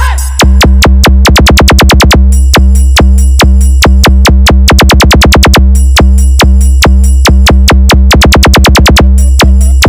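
Electronic DJ 'sound check' vibration beat, very loud: a constant deep sub-bass under fast drum-machine hits that come in runs that speed up into rolls.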